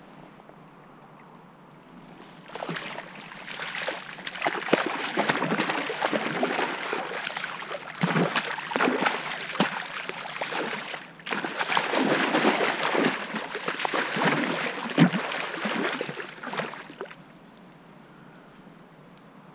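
Atlantic salmon thrashing in a landing net in shallow river water: loud, irregular splashing and slapping that starts a couple of seconds in, breaks off for a moment midway, and dies down near the end as the fish settles.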